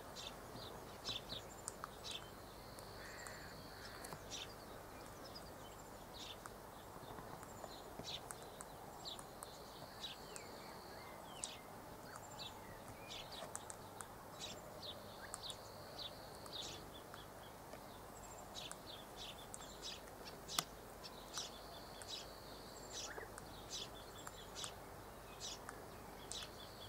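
Faint birdsong: many short, high chirps and calls scattered throughout, with a steady high buzz lasting a second or so that comes back about every six seconds.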